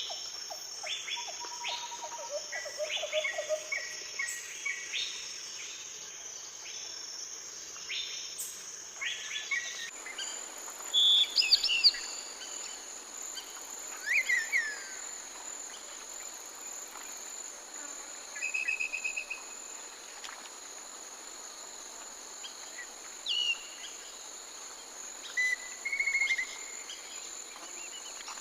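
Steady high-pitched insect trill with many short bird chirps and calls over it, the loudest calls coming in brief bursts near the middle and end. The background changes abruptly about ten seconds in.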